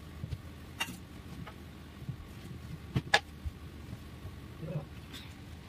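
Steady low hum with a few light clicks and taps from a paintbrush and hand working on a sketchbook page; the sharpest click comes about three seconds in.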